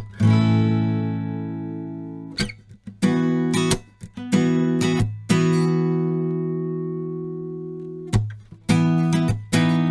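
Johnson JG-620-S dreadnought acoustic guitar strummed. Chords are left to ring out for a couple of seconds at a time, and the strumming gets quicker near the end.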